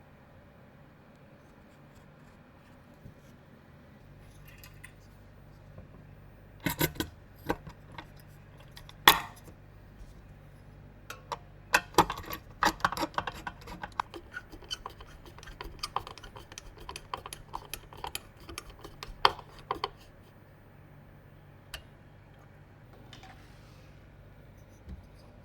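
Clicks, taps and light clatter of small hard parts being handled during PC assembly, densest from about seven to twenty seconds in. A low steady hum starts about four seconds in.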